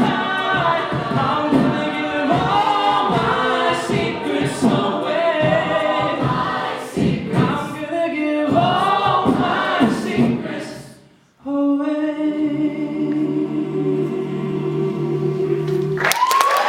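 An a cappella vocal group singing the close of a song. The voices break off briefly about two-thirds of the way in, then hold a final sustained chord. Applause and cheering break out just before the end.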